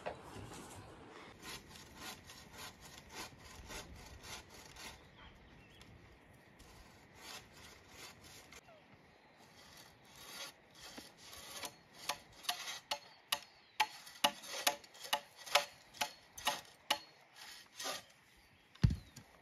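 Hand bow saw cutting through a wooden post in regular back-and-forth strokes, faint at first, then strong and steady at about two to three strokes a second in the second half. A single heavy thump comes near the end.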